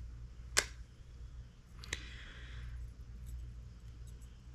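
Two sharp clicks about a second and a half apart, the second followed by a short rustle, as a plastic pack of circle hooks is handled and opened. A steady low hum runs underneath.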